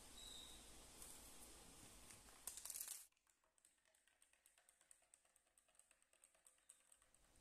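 Near silence: a low hiss with a short rustle about two and a half seconds in, then very faint, rapid light ticking of a spoon stirring in a glass.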